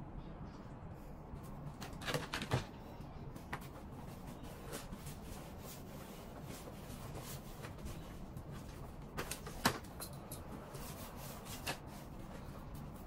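Shirt fabric rustling with scattered light clicks and knocks as a shirt on a wooden hanger is buttoned and its sleeves pulled out and shaken. The sharpest knocks come about two seconds in and again near ten seconds, over a steady low hum.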